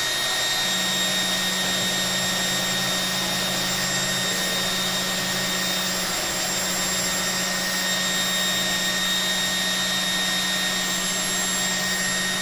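Electric drill running continuously with a steady high whine while drilling holes in corrugated plastic core board. The drill is set to run backwards, so the bit spins in reverse and does not cut through well.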